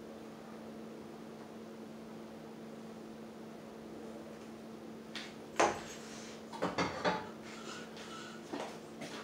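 A steady low hum, then from about five seconds in a few sharp clanks and knocks of metal pots and utensils being handled, the loudest about halfway through.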